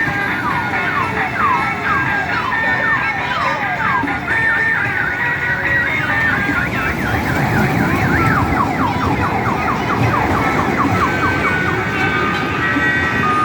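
Electronic siren-like sound: rapidly repeated falling pitch sweeps that get faster in the middle and fade out near the end, over a steady rumbling noise.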